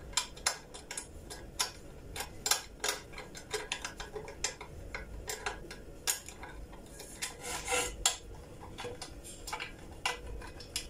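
A kitchen knife's tip used as a screwdriver, scraping and clicking against a screw as a handle is screwed onto a granite-coated frying pan. The sound is a run of irregular sharp metal clicks and short scrapes.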